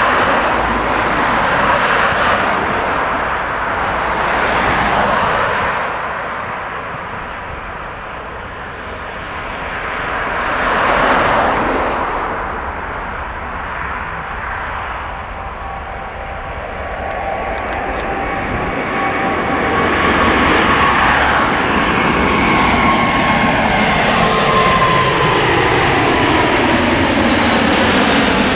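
Jet airliner passing close: a loud rushing engine noise builds in the last third, with whining tones that slide down in pitch as it goes by. Before that, a rushing noise swells and fades several times.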